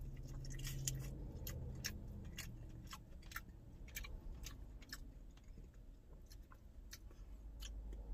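A man chewing sauced chicken wings close to the microphone, with wet mouth clicks and smacks about twice a second.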